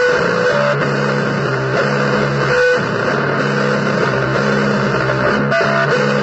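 Guitar playing blues, a steady line of held notes, low notes with a higher line above them, changing every half second to a second.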